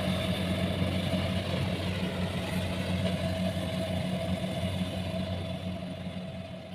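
Kubota rice combine harvester's diesel engine running steadily while it cuts rice, a constant drone with a machinery rush over it, fading toward the end.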